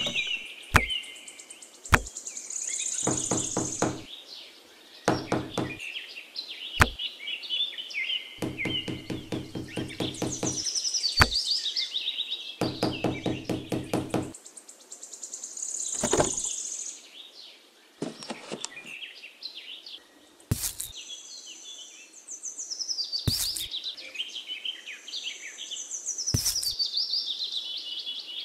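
Bursts of rapid knocking and a few single knocks as wooden sticks are set upright as posts in a sand base, with birds chirping throughout.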